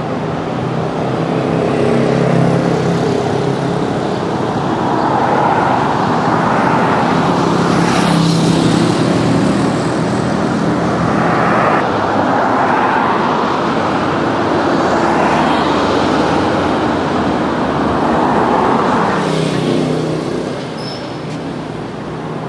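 An engine running steadily, with a rushing noise that swells and fades several times, like traffic or a vehicle in motion.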